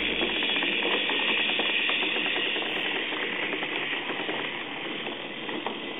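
Toy Thomas the Tank Engine train running with its cars on an Ikea Lillabo wooden track: a steady whirring rattle of the motor and wheels, with fine clicking from the wheels on the wooden rails.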